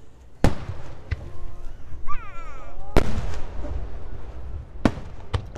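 Aerial firework shells bursting: five sharp bangs at uneven intervals, with a short exclamation from a voice between the first two and the third.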